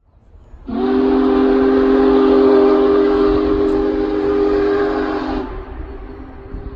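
Union Pacific 4014 Big Boy steam locomotive's chime whistle blowing one long, low chord that starts about a second in and drops to a weaker tone a little after five seconds.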